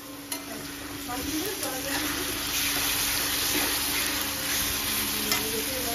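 Chopped onions sizzling in hot oil in an aluminium kadai, a metal spatula stirring and now and then scraping the pan. The frying gets louder over the first second or two, with a steady low hum underneath.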